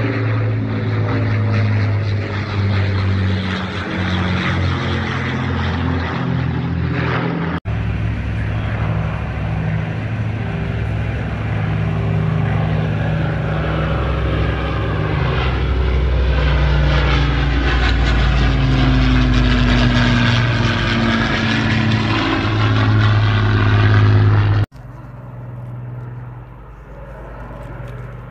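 Avro Lancaster bomber's four Rolls-Royce Merlin V12 engines running as it flies over, a loud steady drone with its pitch sliding in the middle part. The sound changes abruptly twice, about a quarter of the way in and near the end, becoming quieter after the second change.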